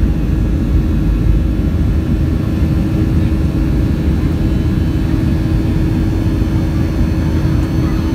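Boeing 737-300's CFM56-3 turbofan engines at takeoff thrust during the initial climb, heard inside the cabin: a steady, loud roar with a deep rumble and a constant hum.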